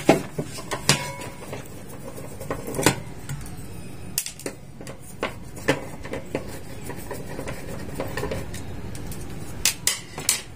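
Scattered clicks and clinks of a metal hand tool and fingers working on an inverter circuit board in its plastic housing, as the board is being taken apart. A few clicks come in quick succession near the end.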